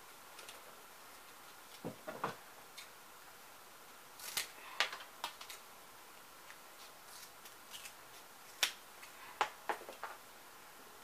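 Scissors snipping and wooden craft sticks clicking as they are handled, in scattered short sounds with quiet gaps between them.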